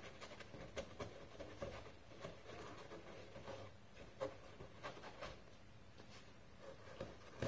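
Faint rubbing and scattered soft taps of hands pressing foam insert strips into slots in a foam layer lining a hard case and lifting them out again.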